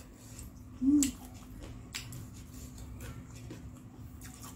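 Eating sounds close to the microphone: a short hummed "mm" about a second in, then a few soft scattered clicks and wet mouth noises as fried snacks dipped in peanut sauce are eaten.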